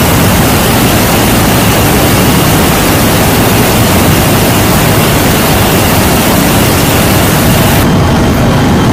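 Steady loud roar of a C-17 Globemaster III's four turbofan engines and airflow, heard inside the cargo hold in flight. For about the last second the hiss drops away and the roar turns duller.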